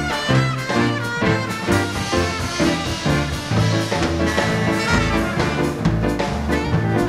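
A small dance band playing live: trumpet, trombone and saxophone over bass and drums, with a steady beat.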